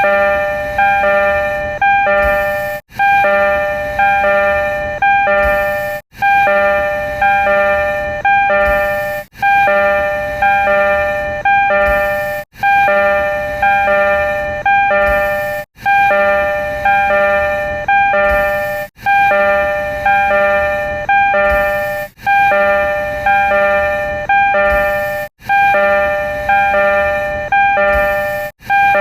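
Tokyo Metro 02 series door chime (B-renovated cars): a short run of clear electronic chime notes, looped so that it restarts about every three seconds after a brief gap, around nine times over.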